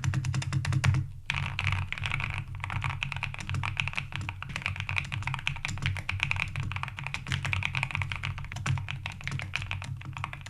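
Rapid typing on a Neo 98 custom mechanical keyboard, its keys clacking in a dense, fast stream: a keyboard sound test. There is a brief break about a second in.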